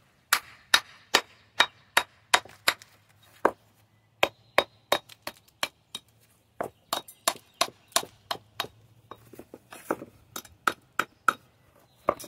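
Hammer striking stone in quick, uneven blows, chipping at a cut rock to take away the saw-cut mark, with a couple of short pauses between runs of strikes.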